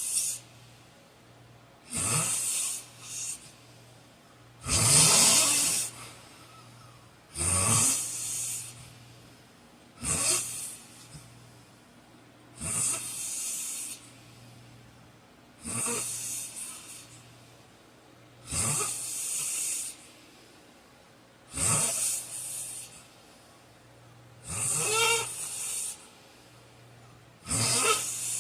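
A man snoring in his sleep: about ten loud, rasping snores, one roughly every three seconds, in an even rhythm.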